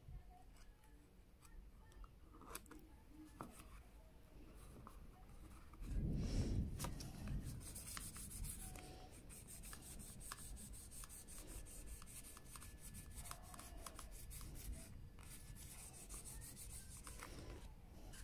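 Faint rubbing and handling of a paper sticker card against a phone's back as the sticker is pressed on, with scattered small clicks and a louder rustle about six seconds in.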